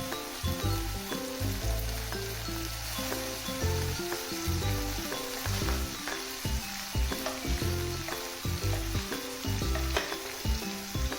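Food sizzling in the heat of a grill or pan, a steady hiss with small crackles, under background music with a stepping bass line.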